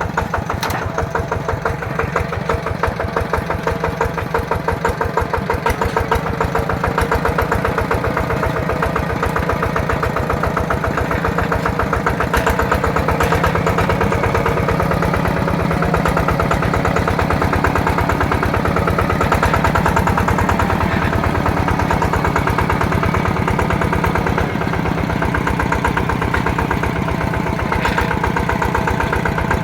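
Yanmar single-cylinder horizontal diesel engine on a two-wheel walking tractor running steadily, with a fast, even firing beat.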